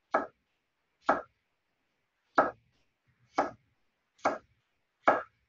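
Kitchen knife chopping through a bundle of young carrots on a wooden cutting board: six sharp knocks, about one a second.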